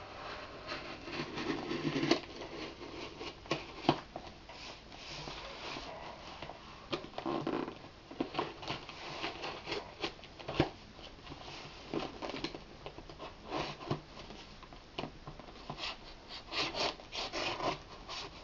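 A small knife scraping and sawing at packing tape and cardboard to open a shipping box, in irregular short strokes with occasional sharp taps.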